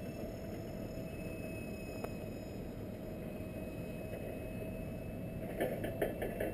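Jet airliner passing high overhead, heard from the ground as a steady, even rumble with a faint thin whine above it. A few sharp clicks of camera handling come near the end.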